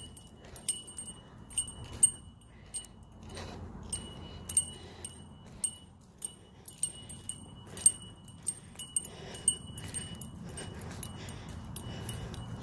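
Light metallic jingling, like small metal pieces such as keys or tags, with a ringing clink about every half second in step with walking.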